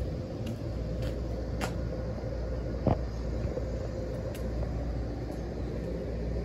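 Steady hum and rumble of an ET127 series electric train standing at the platform with its doors open, its onboard equipment running with a steady tone. A single sharp knock about three seconds in.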